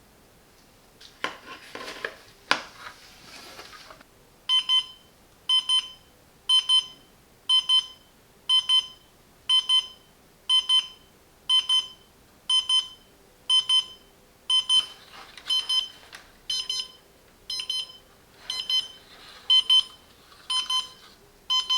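Digital LED wall clock's electronic alarm going off about four seconds in: a regular beeping, a pair of quick beeps about once a second, at its maximum volume.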